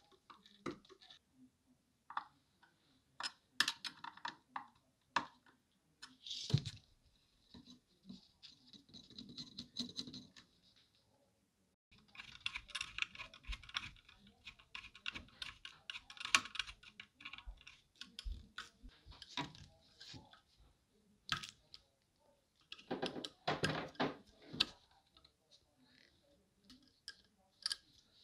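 Hand tools and small metal parts being handled: scattered clicks, taps and light scraping, with longer runs of rapid clicking and a few sharper knocks.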